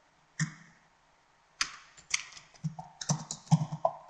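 Computer keyboard typing: separate keystrokes, one about half a second in, then more and closer together through the second half.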